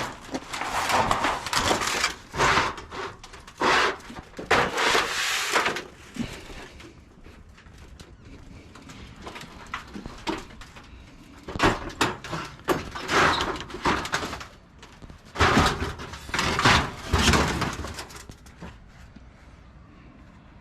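Thin sheet-metal panels of an old tin shed being handled, rattling and banging repeatedly in two busy stretches with a quieter pause in the middle.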